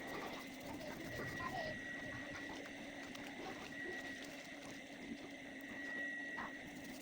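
A machine running steadily and faintly, a high whine over a lower hum, with an even background hiss.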